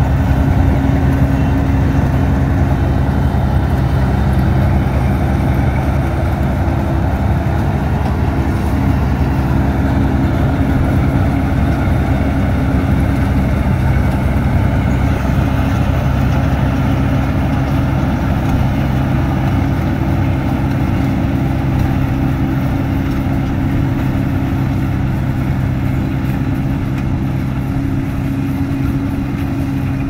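Kubota DC-35 combine harvester's diesel engine running steadily at high speed while harvesting rice.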